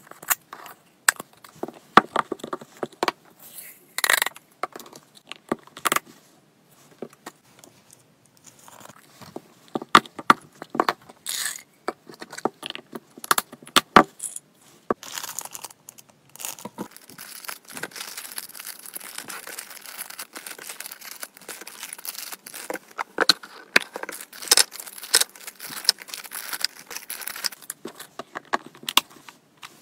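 Hands handling plastic treat containers and dried hamster treats: sharp clicks and taps of a screw-top lid and plastic boxes, with the dry treats rattling inside. From about 17 s on, a denser, continuous dry rustling with clicks as the treats are moved and packed.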